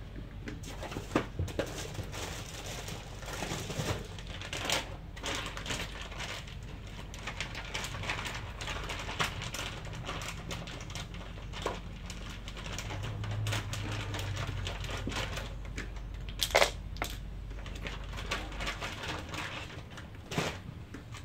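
Busy small clicks, taps and rattles of plastic parts being handled as a label printer's tape cartridge and AA batteries are fitted, with a few louder knocks; near the end AA batteries clink onto a hard tiled floor.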